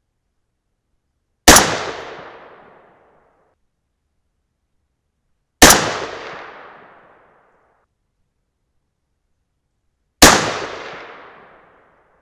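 Three shots from a .223 AR-15 with a 20-inch White Oak Armament barrel and no suppressor, about four seconds apart. Each crack is followed by an echo trailing off over a second or so.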